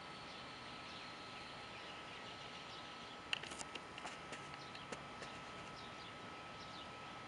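Quiet outdoor ambience: faint, scattered bird chirps over a steady high tone, with a quick run of sharp clicks a little under halfway through.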